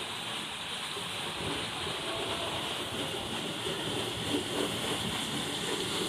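Running water splashing and rushing steadily.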